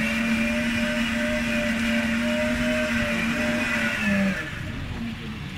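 Electric blender running steadily as it blends leafy greens into green juice, its motor holding one pitch, then switched off about four seconds in.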